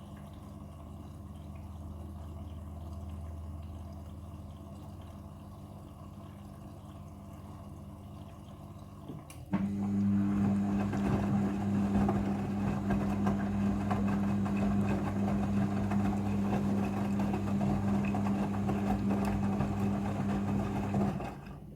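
Midea front-loading washing machine in its rinse cycle: a steady low machine hum, then about nine seconds in a louder hum with rushing water switches on abruptly and runs steadily before cutting off near the end.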